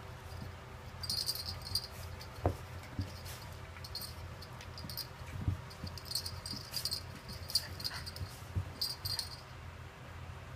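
Teddy bear poodle spinning after her tail on carpet: repeated quick bursts of light clicking and rattling, with a few soft thumps.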